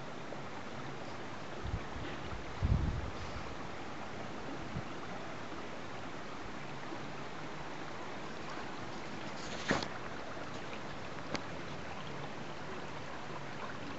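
Water running steadily in a small open irrigation channel, an even rushing noise throughout. A few dull low thumps come about two to three seconds in, and two short sharp clicks later on.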